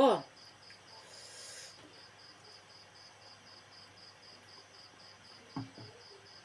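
Insect chirping steadily in the background, short high chirps about four times a second, with one brief low sound about five and a half seconds in.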